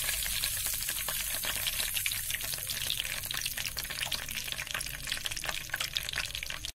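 Whole cumin, nigella, fenugreek and mustard seeds sizzling in hot oil in a pan: a dense crackle of tiny pops that eases slightly toward the end. This is the crackle of a tempering (tadka), the sign that the oil is hot enough and the seeds are cooking.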